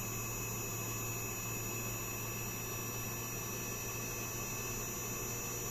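Steady low electrical hum with faint steady high-pitched whines from an inverter air conditioner's outdoor unit running with its compressor on, working normally with no voltage drop.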